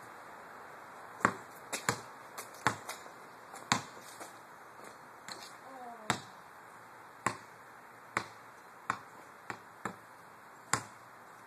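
A ball bouncing and being struck on a paved driveway: a series of sharp, uneven hits, roughly one every half second to second.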